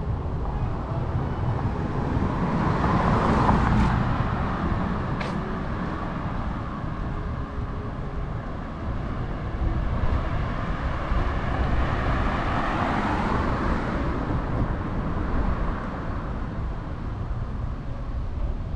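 Street traffic: two cars drive past one after another, their tyre and engine noise swelling and fading, about three seconds in and again about thirteen seconds in, over a constant low rumble.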